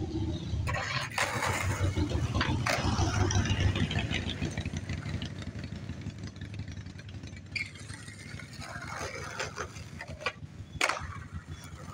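Skateboard wheels rolling on pavement: a low rumble that swells over the first few seconds and then fades. Several sharp clacks of the board, the loudest near the end.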